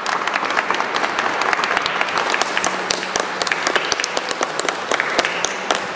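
Congregation applauding: dense, steady clapping that starts suddenly and breaks off near the end.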